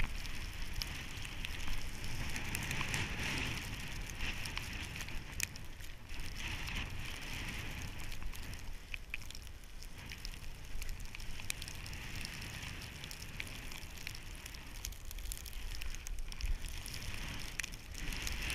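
Snowboard gliding through deep powder snow: a steady hiss and crackle of snow under the board that swells and eases every few seconds, over a low rumble of wind on the microphone.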